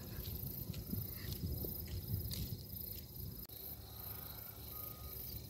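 Insects trilling steadily in a fast, even pulse, faint, with a low rumble underneath.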